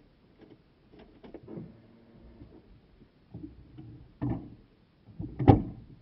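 Knocks, clunks and bumps inside a car cabin as a person climbs in at the driver's door. The loudest is a heavy thud about five and a half seconds in.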